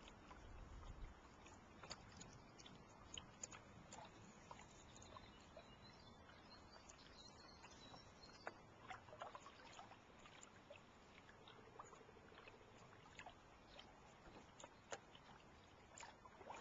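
Faint water lapping and trickling against a canoe, with scattered small clicks and ticks.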